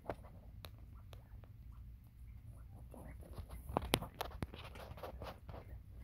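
Bobwhite quail pecking seed from a shallow bowl and scratching through dry straw: irregular sharp taps and ticks with rustling, busiest and loudest a little before 4 s.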